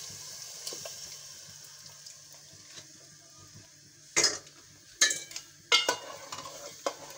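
Sizzle of the fried masala dying away as the gram-flour and buttermilk batter is poured in, then a metal whisk stirring in an aluminium pot, with four sharp clanks against the pot in the second half and softer scraping between them.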